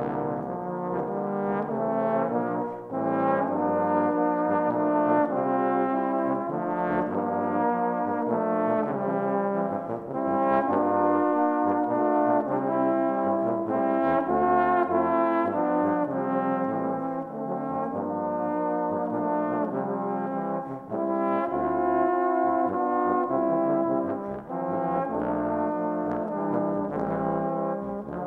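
Four overdubbed trombone parts (tenor, tenor-bass and bass trombones) playing together without a break, a brisk multi-voice brass passage with chords over a moving low line.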